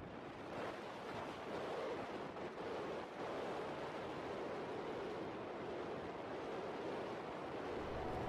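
Steady rush of wind over the microphone of a small camera strapped to the back of a golden eagle in flight.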